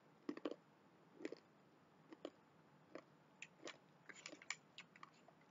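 Faint chewing of a roasted chili-honey almond: a scattered series of short, crisp crunches.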